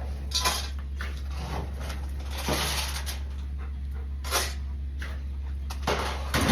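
A dog close by, with about five short noisy sounds a second or so apart, over a steady low hum.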